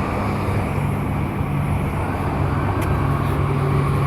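Diesel engine of an approaching big-rig semi truck: a low, steady roar over passing-traffic road noise, with no horn.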